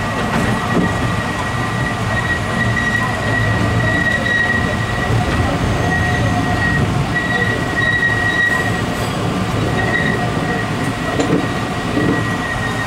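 Alishan Forest Railway narrow-gauge train's wheels squealing as it rounds a tight curve, a high steady squeal that swells and fades over the low rumble of the carriages.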